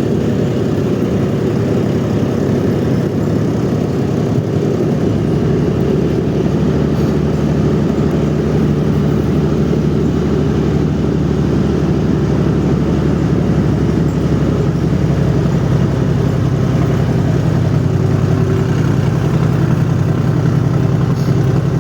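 An engine running steadily, a continuous low hum that grows a little stronger and steadier about halfway through.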